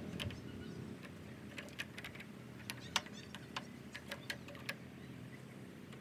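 Light, irregular metallic clicks and taps, about ten of them, as a steel hex key works a screw on the top of a Wen thickness planer. A short bird chirp comes about three seconds in, over a low steady background rumble.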